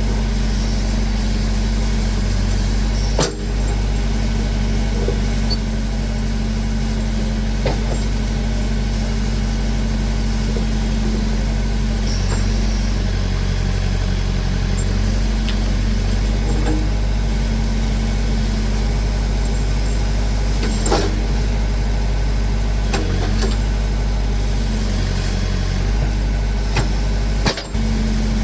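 Massey Ferguson BX 50 backhoe's engine running steadily while digging, with a few brief dips in its note and several sharp knocks from the working machine.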